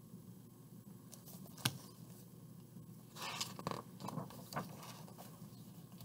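Page of a large hardcover picture book being turned by hand. There is a sharp tap about a second and a half in, then a short paper rustle and a few soft knocks as the page flips over.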